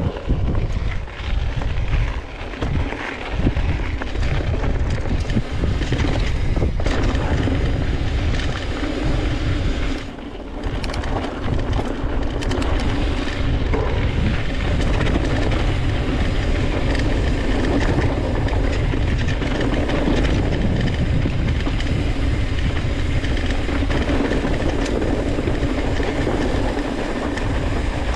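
Wind rumbling over the camera microphone and the knobby tyres of a Polygon Siskiu N7 mountain bike rolling over a rough dirt trail, with occasional knocks from the bike over bumps.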